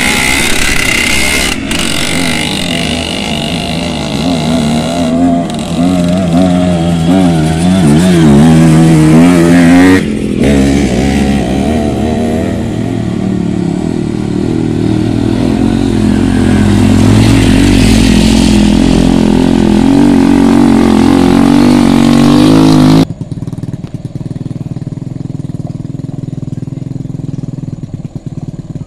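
Small motorcycle engines revving and labouring up a steep rough dirt road, the pitch wavering as the throttle rises and falls. About ten seconds in the sound changes abruptly to a steadier engine note, and near the end it drops suddenly to a much quieter steady engine hum.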